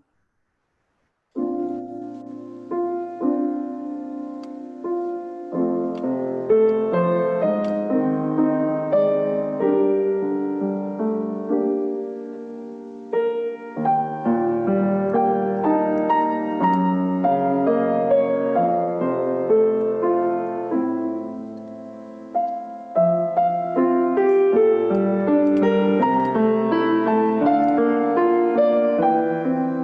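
Solo piano music: a prelude beginning about a second and a half in, with a run of struck notes that fade away.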